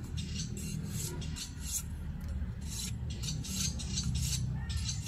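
Bolo knife blade scraping and shaving a thin bamboo stick in repeated short strokes, about two a second, over a steady low rumble. The stick is being pared down to fit the bore of the outer bamboo tube.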